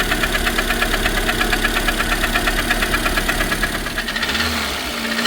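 Lada Granta 1.6 eight-valve 186 engine running at idle with a rapid, regular knock, the sign of piston slap from a scuffed fourth-cylinder piston. The knocking fades about four seconds in.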